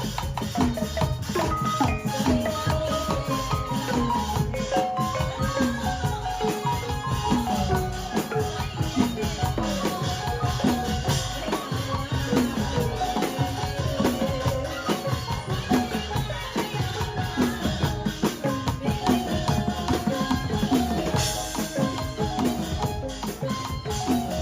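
Background music: a quick, upbeat tune of struck melodic notes like a marimba over light percussion with a steady beat.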